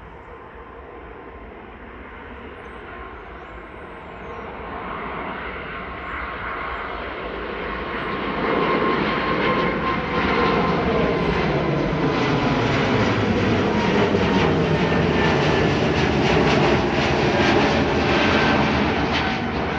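Airbus A220-300's Pratt & Whitney PW1500G geared turbofans at takeoff thrust, growing steadily louder over the first eight seconds or so as the jet accelerates toward the microphone, then staying loud with a steady whine over the engine noise.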